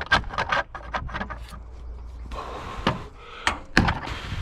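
Claw hammer working a long nail out of a wooden 2x4: wood creaking and rubbing against the nail, with a quick run of short knocks at first and a few sharp knocks near the end.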